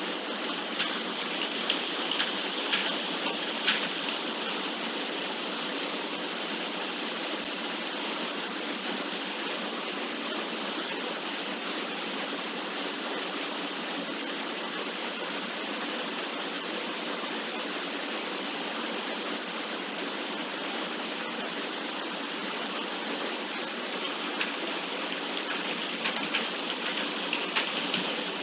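Gearbox running with a steady grinding noise, with sharp clicks in the first few seconds and again near the end.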